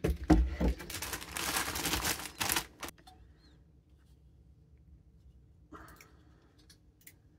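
Thin plastic bag crinkling and rustling for about three seconds, with a few sharp clicks, as a CPU cooler is pulled out of it; then near quiet apart from a faint low hum and a brief light rustle.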